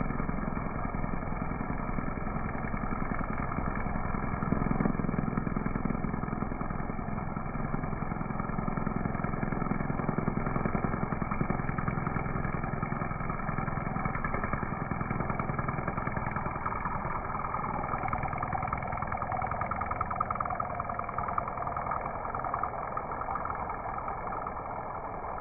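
Gas string trimmer running steadily, its head held on edge to cut a sharp line along the border of a mulch bed.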